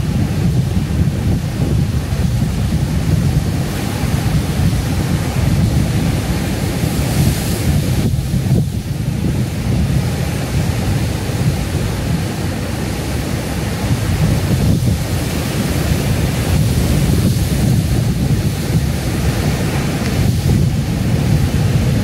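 Heavy ocean surf breaking on a rocky shore: a continuous, deep rumble of crashing waves and white water, with wind buffeting the microphone.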